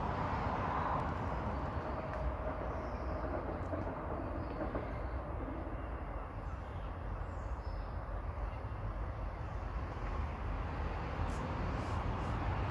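Passenger train approaching from a distance along the line, a low steady rumble, with a few sharp clicks near the end.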